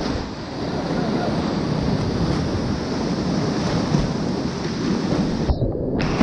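Rushing whitewater of a creek in flood, a steady loud rapid surging around a kayak. A splash breaks over the boat right at the start, and the sound briefly goes dull about five and a half seconds in.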